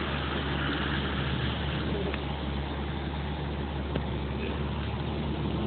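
Audi S4 B6's 4.2-litre V8 engine running at a fairly even pitch as the car slides in donuts on snow.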